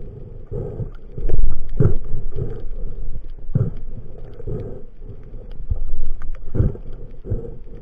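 Muffled underwater rumbling and irregular low thumps of water moving against an underwater camera as a diver swims, with a few sharper clicks; loudest about a second and a half in and again around six seconds.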